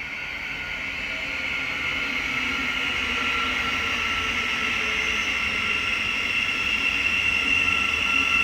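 A train on the line, growing steadily louder, with a steady high-pitched whine over a low rumble.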